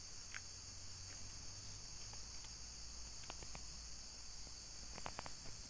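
Steady high-pitched insect chorus, with a few faint clicks, a quick cluster of them near the end.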